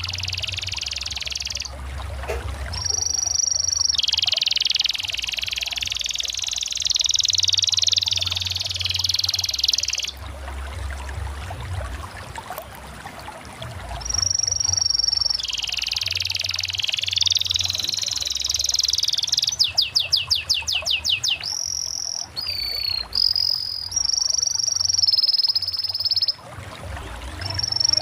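Canary singing: long rolling trills and steady high whistled notes in phrases broken by short pauses, with a rapid run of sharp chips about two-thirds of the way through, over a low hum.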